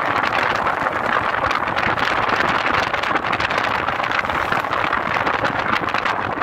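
Steady rush of wind and road noise with a motorcycle running at cruising speed, heard from on the moving bike.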